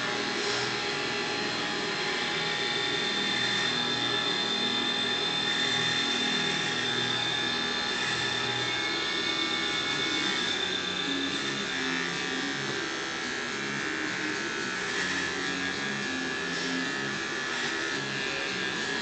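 Corded electric hair clippers buzzing steadily as they shave long hair off the side of a head.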